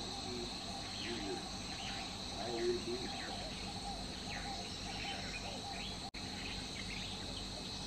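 Morning bush ambience: a steady high-pitched insect drone with birds calling over it, short falling whistles and lower chirping, warbled notes.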